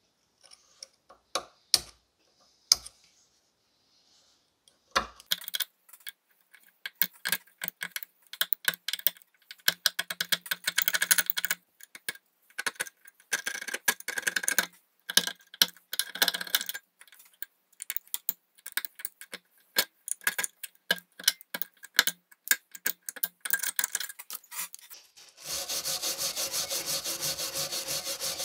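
Steel hobby-knife blade scraping and picking rust and grime out of the recessed cast-iron lettering on a bolt cutter handle: a few sharp clicks at first, then irregular scratching strokes. Near the end a faster, steady, even scrubbing takes over.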